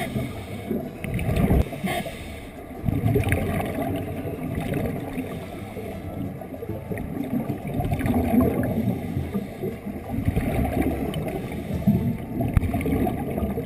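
Underwater gurgling and low rushing from scuba divers' exhaled bubbles and regulators, swelling and fading irregularly every few seconds.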